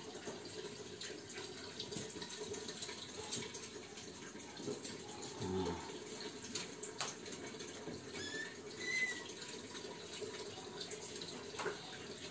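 Steady hiss of a cotton candy machine's gas burner running, just lit with its electric igniter. A few faint clicks, and two short faint chirps about eight seconds in.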